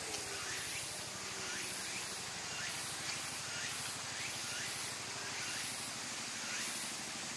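Outdoor ambience: a steady hiss with faint, short rising chirps repeating throughout.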